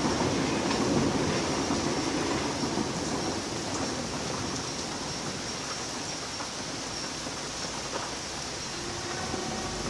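Steady rain during a thunderstorm, with a low rumble of thunder dying away over the first few seconds.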